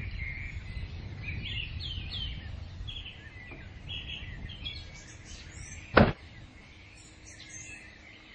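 Small birds chirping repeatedly in short calls and quick sweeping notes over a low background rumble. About six seconds in, a single sharp bang cuts through, the loudest sound here.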